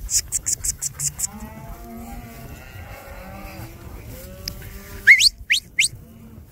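A herd of cattle mooing and bawling, many calls overlapping. Near the end come three short, sharp rising whistles, a herding-dog command whistle. A quick rhythmic clicking is heard in the first second or so.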